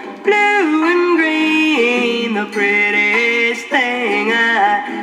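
A vinyl LP of a song with singing playing on a Jensen JTA-230 record player through its small built-in stereo speakers. The sound is thin, with almost no bass below about 200 Hz.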